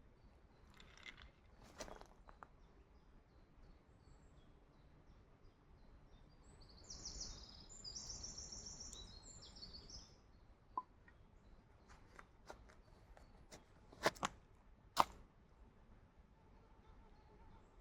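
A few sharp clicks and taps, the loudest two close together about two-thirds of the way in, with a bird singing briefly in the middle.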